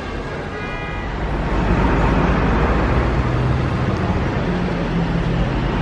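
Street traffic: a motor vehicle passing close, its engine hum and road noise growing louder from about a second and a half in. There is a short high-pitched tone near the start.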